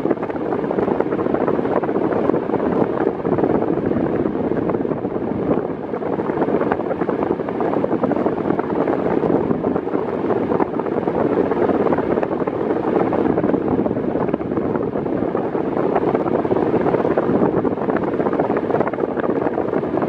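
Arno Silence Force table fan running at its lowest speed: a steady rush of air, with the airflow blowing onto the microphone.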